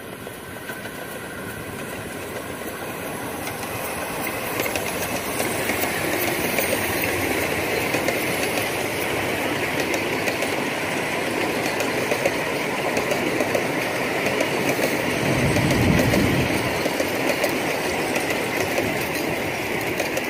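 Miniature ride-on passenger train running past on its track, the wheels of its open cars clattering over the rails, growing louder over the first several seconds as it draws near.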